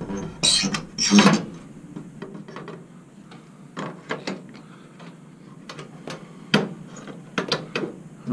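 Fluorescent tubes being gripped and twisted in the sockets of a ceiling troffer, with plastic-and-metal scraping and clicking. Two louder scrapes come about a second in, then scattered single clicks.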